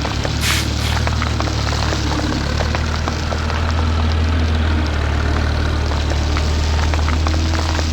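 Heavy truck engine running steadily, a low drone with light rattling ticks over it.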